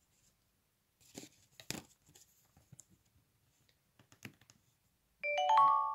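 Samsung Galaxy phone's charger-connected chime: a quick run of rising notes that rings out about five seconds in. Before it come faint clicks and rustles as the charging cable is handled and plugged in.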